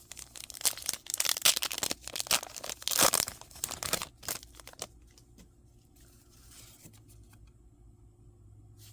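Foil Pokémon booster pack wrapper being torn open and crinkled in the hands for about four seconds, then only a faint low hum.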